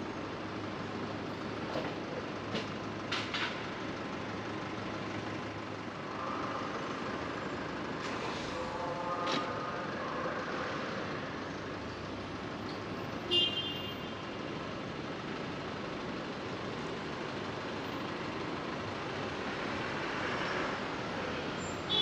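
City street traffic noise heard from a driving car: a steady wash of road and engine noise, with a few short clicks about three seconds in, a pitched tone around nine seconds, and a brief high-pitched tone about thirteen seconds in.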